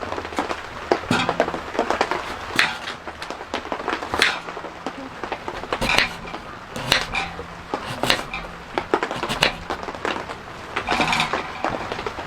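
Irregular knocks, taps and clatter of objects being handled, a sharp knock roughly every one to two seconds.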